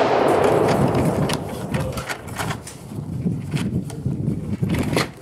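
Scattered clicks and handling rustle of a pistol and its ammunition, with the echo of a gunshot fading over the first second or so.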